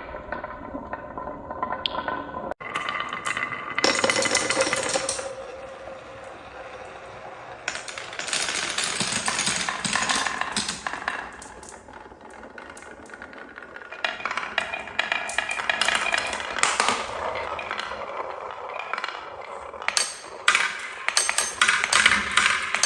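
Many marbles rolling and clattering down a marble run, with rapid clicks and rattles of glass on track. The noise swells in surges as groups of marbles pour through, about every five or six seconds.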